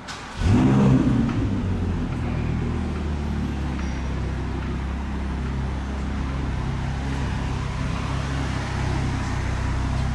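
A motor vehicle's engine nearby, coming in suddenly and loudly about half a second in, then settling into a steady, low running hum.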